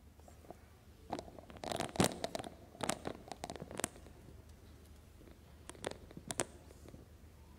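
Handling noise close to a microphone: a cluster of sharp clicks and scrapes from about one to four seconds in, then a few more clicks around six seconds.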